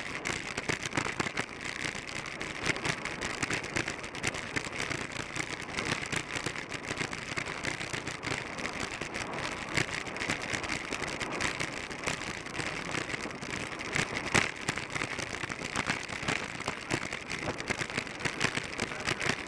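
Steady rush of wind noise on a bike-mounted camera's microphone while riding a track bike at about 25 mph, mixed with the rumble of tyres on the track.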